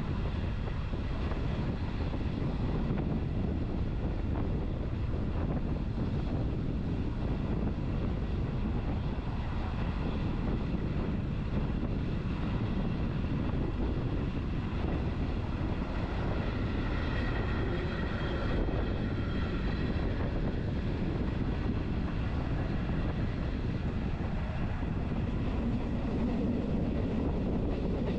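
Lucerne–Engelberg Express electric train running steadily along the track, heard from on board as a constant low rumble of wheels and carriage. A faint high whine joins for a few seconds around the middle.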